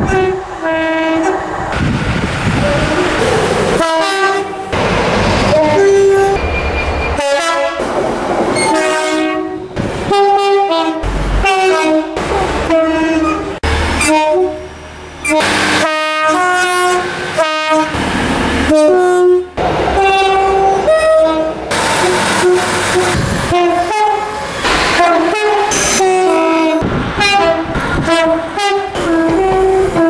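A string of British passenger trains sounding their two-tone air horns one after another, each call stepping between a high and a low note. Short stretches of passing-train rumble come between the blasts.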